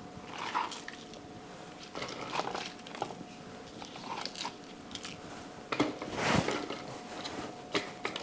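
Sliced scallions being handled and dropped into a food processor bowl: scattered light crunchy clicks and rustles, with a larger cluster about six seconds in.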